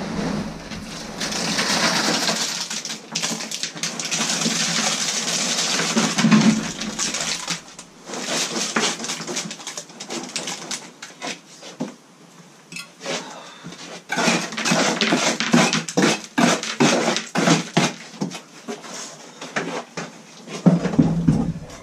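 Concrete being mixed by hand with a metal tool: steady scraping through the wet mix for the first several seconds, then, after a quieter stretch, a run of quick sharp scrapes and knocks.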